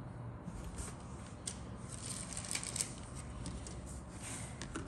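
Plastic model-kit sprues being handled and set down on a cutting mat: rustling with scattered light plastic clicks, busiest and sharpest a little before three seconds in.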